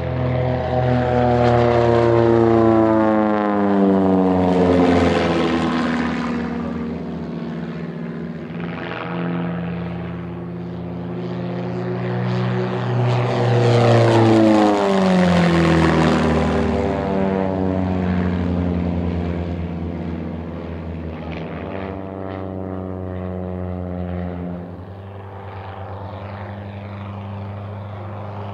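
Pitts S-1S aerobatic biplane's propeller and four-cylinder Lycoming engine at high power during low passes. The engine note drops in pitch as the plane sweeps past, once about three seconds in and again, loudest, about fourteen seconds in, then the sound eases off near the end.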